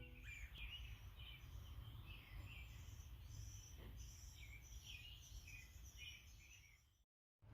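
Faint outdoor chirping: short high calls repeated over and over above a low steady hum. The sound cuts out just before the end.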